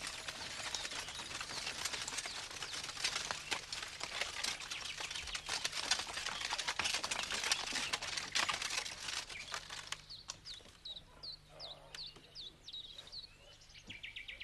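About ten seconds of dense rustling and crackling noise with many sharp clicks, which then falls away sharply. Birds chirp in short rising-and-falling calls through the quieter last few seconds.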